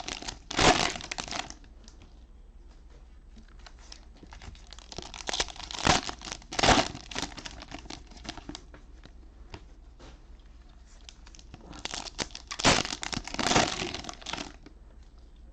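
Cellophane wrappers of trading-card cello packs being torn open and crinkled by hand, in three bursts of a second or two each.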